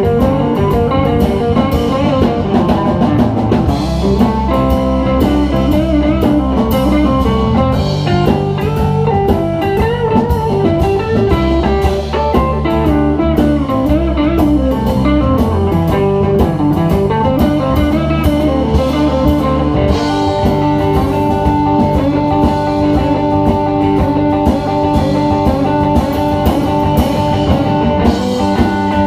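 A blues-rock band playing an instrumental passage, with a guitar lead winding over bass and drum kit. From about two-thirds of the way in, the lead settles into long held notes.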